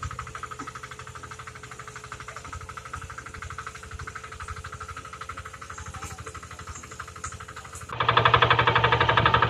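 Two-wheel hand tractor's single-cylinder diesel engine running with a steady, rapid chugging while it pulls a trailer loaded with manure up a slope. The engine gets much louder about eight seconds in.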